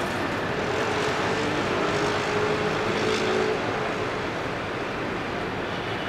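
Steady street traffic noise, with a faint hum rising out of it for a couple of seconds about a second in.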